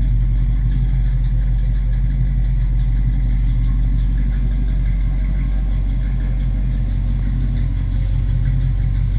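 1969 Ford Mustang Mach 1's V8 idling steadily at low idle, warmed after a cold start, its exhaust tone heard from behind the car.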